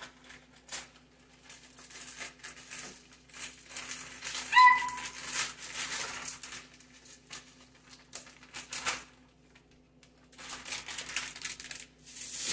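Plastic bag of frozen cauliflower rice crinkling and the rice pouring into a wok, in a run of short rustling bursts. About four and a half seconds in, a brief high-pitched squeal cuts through as the loudest sound.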